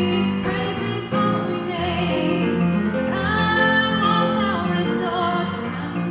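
Sacred choral music: high voices sing slow, held notes with vibrato over a steady low accompaniment.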